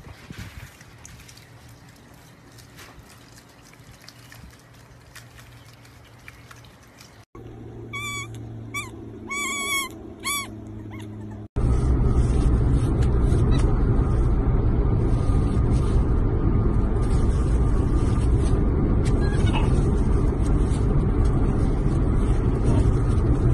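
Faint quiet sounds, then a few squeaky animal calls that rise and fall, and from about twelve seconds in a loud steady rumble of engine and road noise inside a moving car.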